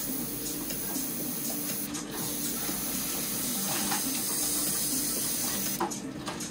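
Airbrush spraying with a steady hiss, misting thinned white paint onto a model to weather and fade it, with a low hum underneath. The spray cuts out briefly twice, once about two seconds in and again near the end.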